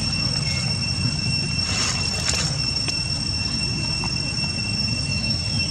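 Steady high-pitched insect buzzing over a low background rumble, with a few brief rustles about two seconds in.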